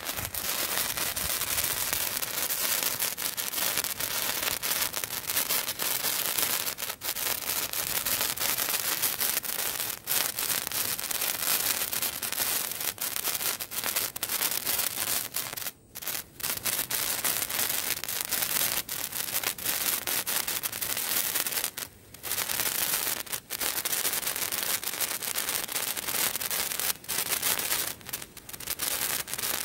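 15 cm colour sparklers burning with a steady fizzing, crackling hiss, broken by a few short gaps.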